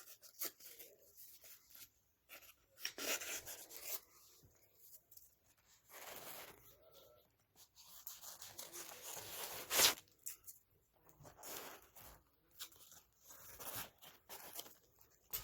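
Irregular scraping and rubbing strokes of hand work on carpet, each lasting about a second, with a sharp click about ten seconds in.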